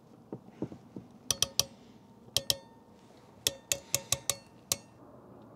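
Sharp metallic clicks, about eleven in small groups of two to five, each ringing briefly, after a few faint knocks: a wire crimping tool working on insulated butt connectors joining electrical cables.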